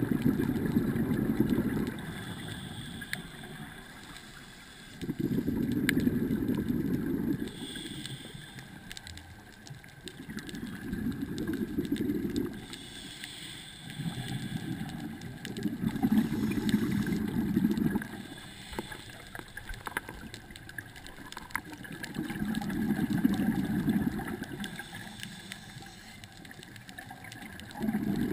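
Scuba diver breathing through a regulator underwater: a short hissing inhale, then a low rumble of exhaled bubbles lasting about two seconds, repeating roughly every five to six seconds.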